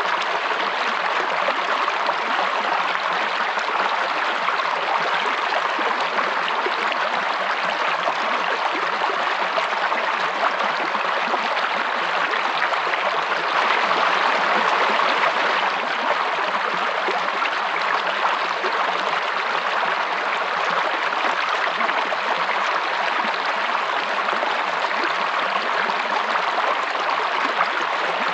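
Running water rushing steadily, a little louder for a couple of seconds about halfway through.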